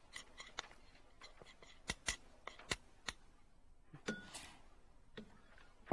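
Metal spoon clinking and scraping against a ceramic bowl while stirring a milk mixture: a scatter of sharp light clicks, with a few louder knocks about two to three seconds in.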